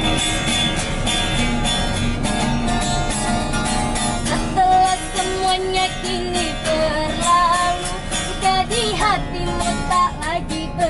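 Busker's acoustic guitar strummed in a steady rhythm, with a voice singing a wavering melody over it from about four and a half seconds in.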